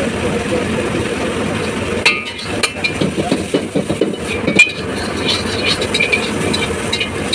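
Metal ladle scraping and clanking against a wok as vegetables are stir-fried, starting about two seconds in, with one sharp clank about halfway through. Under it runs the steady roar of the stall's gas wok burner.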